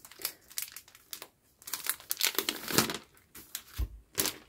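Crinkly packaging of new metal cutting dies being handled and opened: irregular crinkles and rustles, with a dull low bump near the end.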